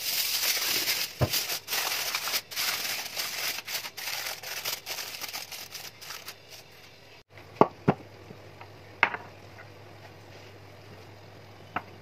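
Aluminium foil crinkling and tearing as it is pulled off and pressed down over a glass baking dish, for about seven seconds. After that come a few short, sharp knocks.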